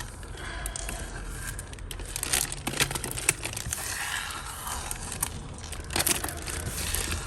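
Small plastic jewellery baggie crinkling and rustling as it is handled, with scattered light clicks and taps.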